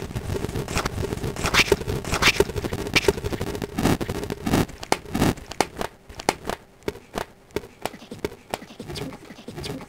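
Handling noise from a phone being carried and moved around: irregular rubbing, knocks and scrapes as the microphone brushes against clothing. The noises are dense in the first half and thin out to scattered knocks after about five seconds.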